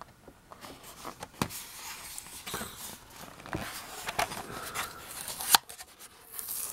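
Plastic blister and cardboard backing card of a Matchbox toy car package handled and pried at with the fingers: scattered crinkles and sharp plastic clicks, the loudest about a second and a half in and near the end.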